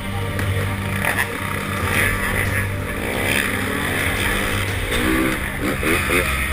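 Motocross motorcycle engine revving hard as the bike accelerates toward a jump ramp and takes off, its pitch rising sharply about three seconds in and again near the end.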